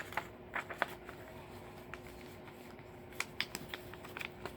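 Scattered light clicks and crinkles of packaging being handled, with a small cluster a little past three seconds in and another near the end.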